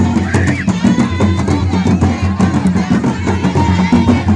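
Drum-led percussion music with dense, fast, sharp hits, and voices carrying over it.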